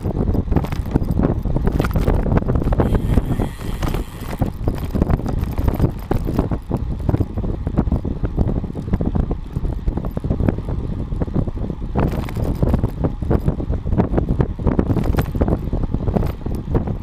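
Wind buffeting the microphone of a bike-mounted GoPro while a road bike rolls along a paved path, with steady tyre noise and many small knocks and rattles from the rough asphalt.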